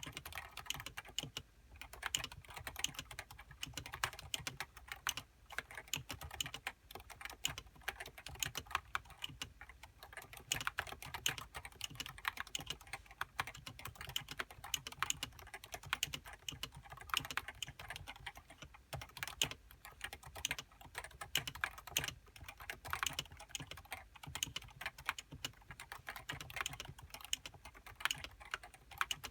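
Continuous fast typing on a Topre Realforce 87U keyboard, its variable-weight Topre electrostatic capacitive switches under HiPro-profile keycaps giving a rapid stream of soft key strokes with brief pauses.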